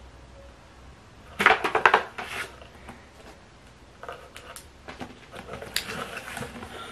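Cardboard shipping box being handled and opened: scraping and rustling of cardboard and paper, with a dense burst about a second and a half in and smaller scattered rustles and knocks later.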